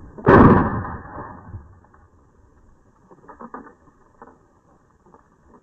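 A single rifle shot from a 7.62x54R Mosin-Nagant firing a sabot-loaded .223 55-grain full-metal-jacket bullet on a full 7.62x54R powder charge: one sharp, very loud crack that rings out for about a second. A few faint knocks follow a few seconds later.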